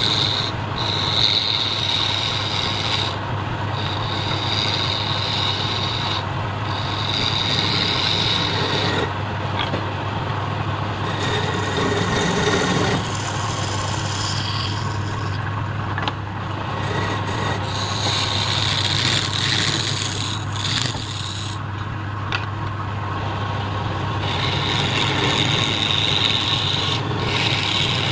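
Wood lathe running with a steady hum while a hand-held turning chisel scrapes and cuts the spinning wooden piece. The cutting hiss comes and goes in spells of a few seconds.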